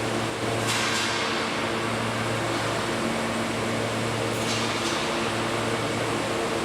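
Steady machine hum with fan-like air noise: a constant low drone under an even hiss, with faint hissing swells about a second in and again after about four seconds.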